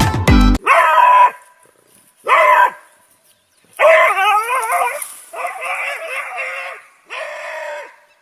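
A dog howling in five drawn-out calls with a wavering pitch, the longest about four seconds in.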